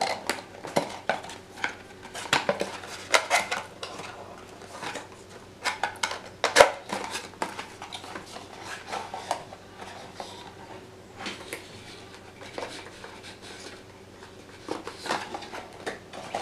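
Irregular plastic clicks, taps and cardboard rustling as a GoPro Hero 5 camera, still fixed to its packaging mount, is turned and pulled at to free it, with one sharper click about six and a half seconds in.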